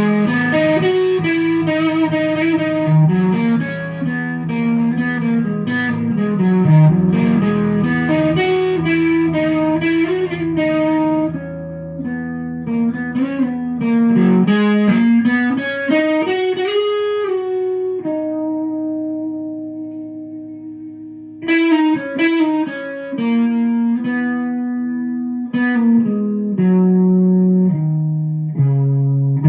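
Electric guitar played through a home-built, Champ-style amplifier still under construction: picked notes and chords with string bends, a long held note that fades away about halfway through, then a run of picked notes to finish.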